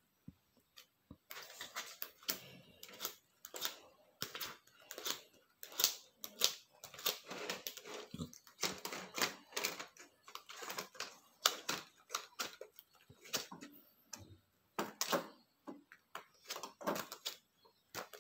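A stack of thin white sheets and clear plastic shoe-box panels being flipped through and counted by hand: rapid, irregular clicking and rustling as each sheet is lifted and let go, with short pauses.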